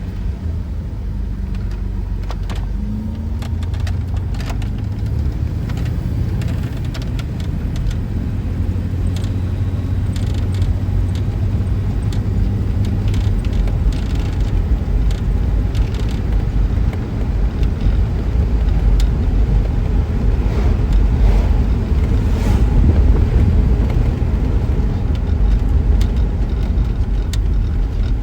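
Moving car heard from inside the cabin: a steady low rumble of engine and tyres on the road, with scattered light clicks and rattles.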